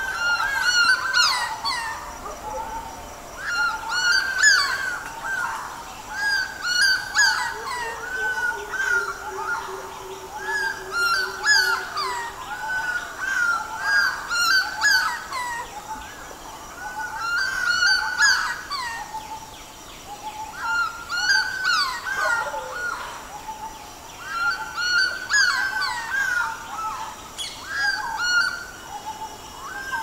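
Morning chorus of many birds calling over one another, with busy bouts of chirps and calls that swell and ease every few seconds.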